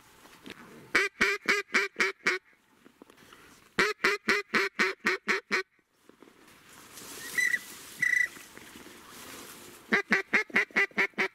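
Duck call blown in three runs of evenly spaced quacks, about five a second, with a pause between runs. Two short, high whistled notes come midway.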